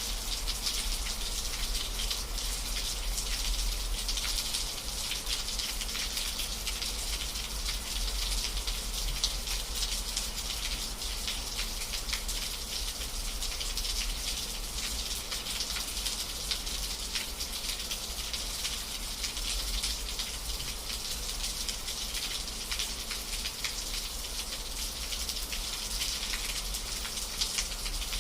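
Steady rain falling, a dense patter of drops with a continuous hiss.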